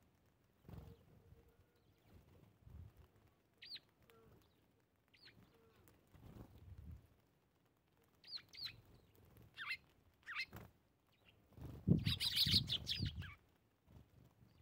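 Eurasian tree sparrows giving short, scattered chirps. About twelve seconds in comes a louder burst of rapid chirping mixed with low thumps.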